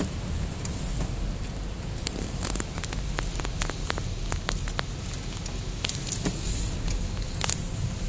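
Raindrops ticking sharply on the car's glass and bodywork, heard from inside the car, in a cluster from about two seconds in, over a steady low rumble of wind.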